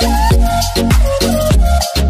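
Background electronic music with a steady beat and deep bass drum hits that slide down in pitch.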